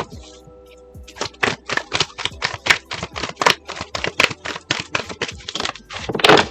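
Oracle cards being shuffled by hand: a quick run of card slaps, about four to five a second, with a longer, louder flutter near the end, over background music.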